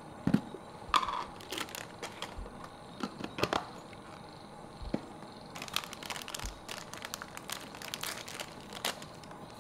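Crinkling and rustling of a plastic bag of coffee powder being handled, in scattered bursts, with a couple of sharper clicks about a second in.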